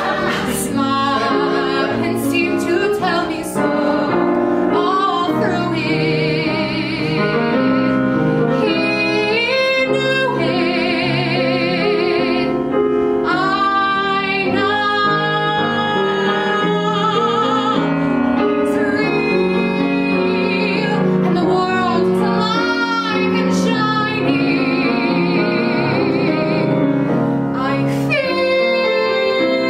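A woman singing a musical theatre ballad with a grand piano accompanying her, holding several long notes with a wide vibrato.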